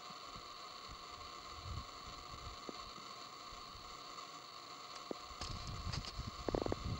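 Steady hiss and faint electronic whine of the camera's own microphone, with light wind rumbling on the mic. In the last two seconds a flurry of clicks and knocks from handling of the camera as it pans.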